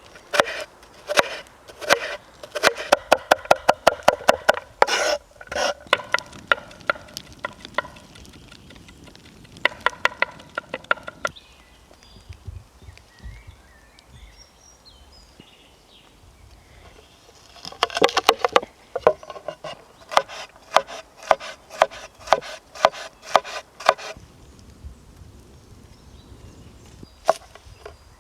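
Knife chopping on a wooden cutting board in quick runs of strokes, several a second, stopping for a few seconds in the middle.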